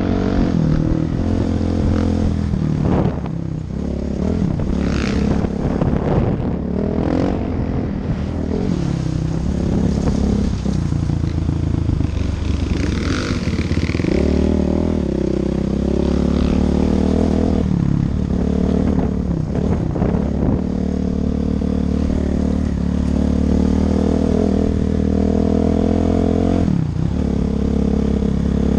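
Engine of an off-road vehicle running under way on a dirt trail, its pitch rising and falling with the throttle, with occasional knocks and rattles over bumps.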